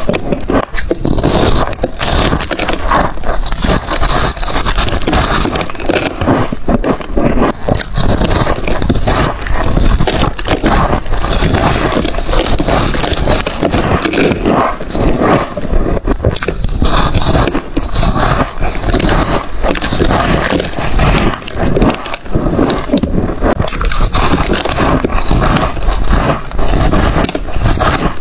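Close-up crunching of packed freezer frost being bitten and chewed: a continuous run of crisp, crackly crunches with no pauses.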